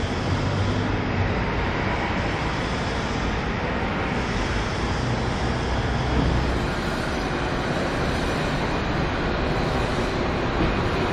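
Steady city street noise: a constant rumble of traffic with no distinct events standing out.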